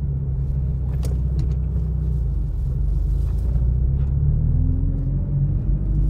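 Steady low rumble of a car driving, heard from inside the cabin, with a few faint light clicks.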